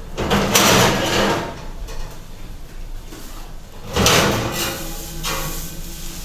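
Kitchen oven door being opened and shut as a baking pan goes in, with two loud noisy clunks, one about half a second in and another about four seconds in.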